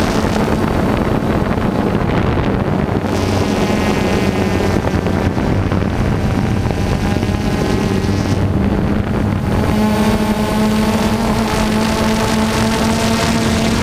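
DJI Phantom 2 quadcopter's propellers and brushless motors buzzing loudly in flight, heard from the camera mounted on the drone itself, a steady hum mixed with rushing air over the microphone. The rushing eases for a few seconds in the middle as the motors change speed.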